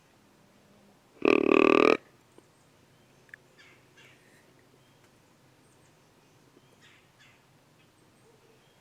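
One short, loud pitched deer grunt about a second in, under a second long.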